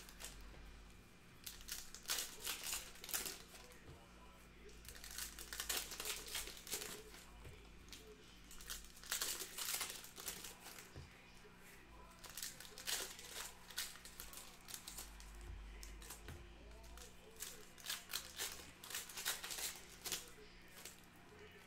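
Foil trading-card pack wrappers being torn open and crinkled, in repeated bursts with short pauses between them.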